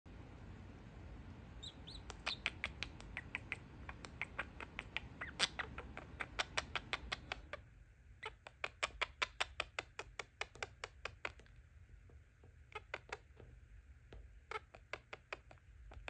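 Budgerigar chattering in quick strings of short, sharp clicking chirps, about five a second, thinning to a few brief clusters after about eleven seconds. A steady low hum runs underneath.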